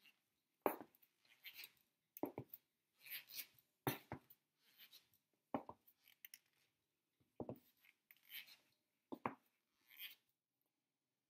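Faint, slow footsteps of shoes on a wooden floor, about a step a second, alternating a sharp tap and a softer scuff.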